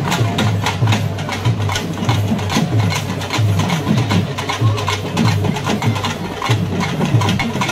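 Loud percussion-led music: quick, sharp drum strokes several times a second over a deeper drum beat about twice a second.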